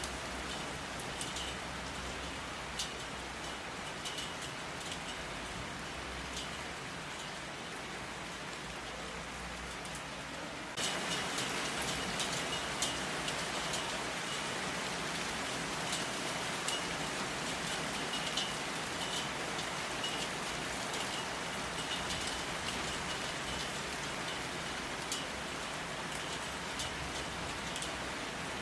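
Steady rain falling, with scattered single drops tapping sharply on a surface. About eleven seconds in the rain jumps suddenly louder and stays there.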